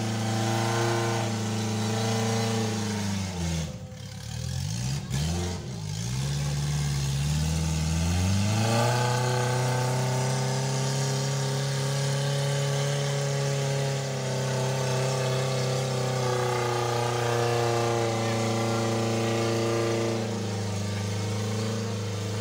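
Daihatsu Taft Hiline's engine working under load on a slippery off-road track. About four seconds in its revs drop sharply and waver for a few seconds, then climb back and are held high.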